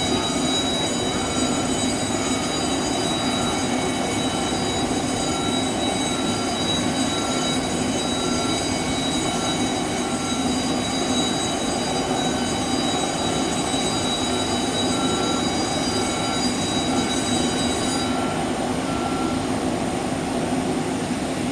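Steady turbine whine and hum from a parked McDonnell Douglas MD-80 airliner at the gate, with a jet bridge's warning beeper sounding about once a second as the bridge drives up to the forward door; the beeping stops near the end.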